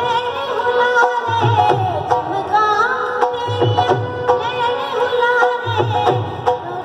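Live Punjabi folk music: a drum beats in repeating groups under a held drone, with a bending melody line on top.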